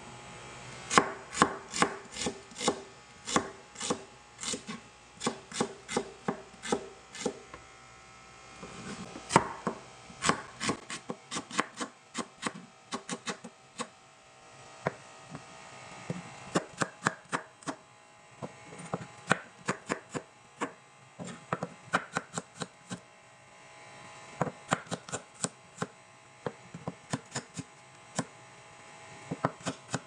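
Chef's knife chopping red onion and then garlic cloves on a plastic cutting board: runs of sharp knocks of the blade on the board, about two to three a second, broken by short pauses.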